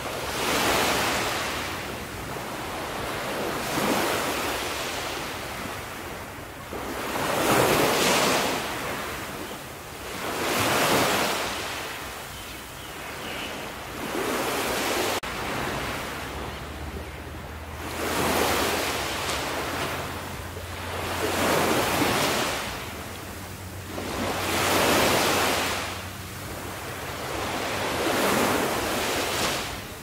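Small sea waves breaking and washing up a beach, the surf swelling and fading about every three seconds.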